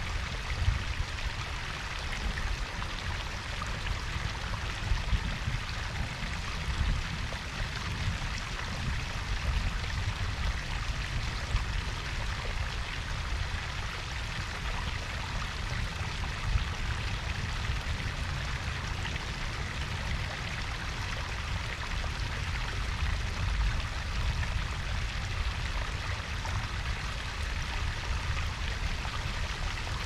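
Water from a garden koi pond's waterfall and brook, splashing and trickling without pause, with a deep rumble underneath.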